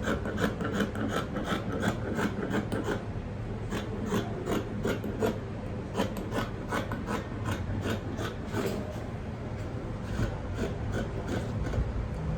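Quick, irregular scratching and rubbing strokes, several a second, from hand work on a paper or fabric sewing pattern at the cutting table.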